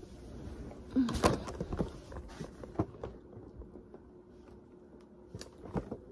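Handling noise: a few scattered knocks and rustles as a clear plastic gift box is picked up and held, with a short cluster about a second in.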